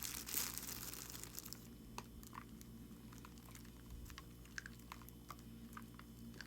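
Loose soil being handled and poured into a planting container: a crumbly rustling for the first second or so, thinning to scattered small crackles and clicks.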